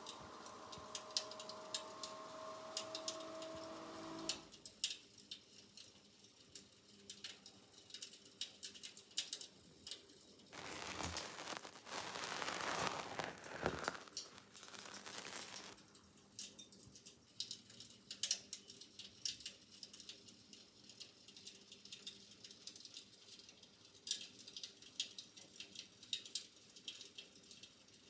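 An electric fireplace's built-in fire-crackling sound effect: scattered sharp pops and crackles throughout. A steady hum sits under the first four seconds, and a louder rushing noise comes in from about ten to fifteen seconds in.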